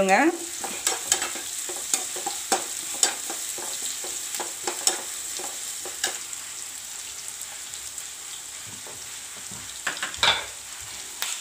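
Sliced onions and green chillies sizzling in hot oil in a nonstick kadai as they sauté, with a perforated steel ladle scraping and clicking against the pan. The clicks are frequent in the first half and thin out later, with one louder clack about ten seconds in.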